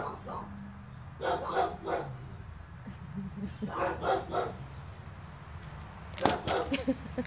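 A cat pushing a plastic cup with its head on a carpeted floor; about six seconds in the cup gives a sharp knock as it is tipped. Twice before that, a short burst of a voice.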